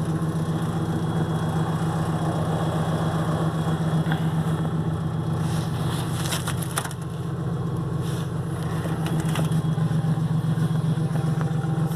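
Pickup truck engine idling steadily while warming up. A short run of sharp crackles and clicks comes about six to seven seconds in.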